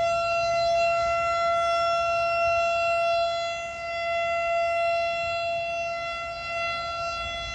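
Shabbat siren sounding one long, steady, loud tone without any rise or fall in pitch, rich in overtones: the Friday signal that the Sabbath is starting.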